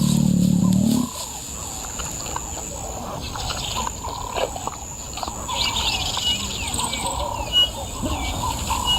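Natural outdoor ambience of birds chirping and calling with short, scattered notes, joined about halfway through by a busy high buzzing. A loud low sound at the start cuts off abruptly after about a second.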